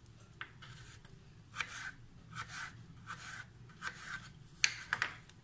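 Kitchen knife slicing through peeled raw potato on a wooden cutting board: a steady run of short rasping cutting strokes, about one every three quarters of a second. A couple of sharper knocks of the blade on the board come near the end.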